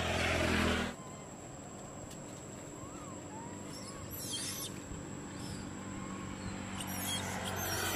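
A motor drone cuts off sharply about a second in. After it, a quiet outdoor background with a few short, high-pitched animal squeaks or chirps from about four seconds in and again near the end.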